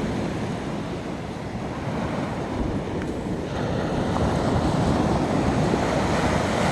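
Small surf of an incoming tide washing onto the sand, a steady rushing that swells louder about halfway through.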